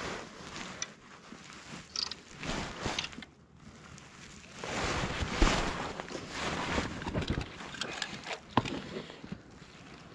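Water sloshing and splashing around a float tube in irregular swells, loudest about halfway through, with a few small clicks of handling.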